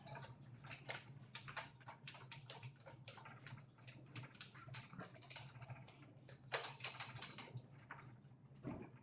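Faint, irregular clicks and light knocks of a bicycle being handled, taken down off a work stand, with a small cluster of louder clicks about two-thirds of the way through.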